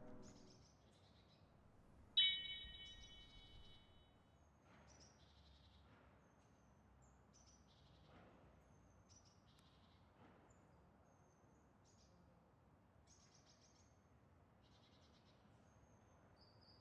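A single chime-like ring about two seconds in, with several pitches, fading out over about two seconds. After it come faint, high, short chirps, one about every second, like birds calling.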